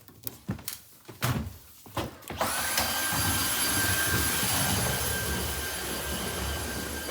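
A few knocks and clicks, then, about two and a half seconds in, a cordless Dyson stick vacuum is switched on: its motor spins up almost at once to a steady high whine over an even rush of suction.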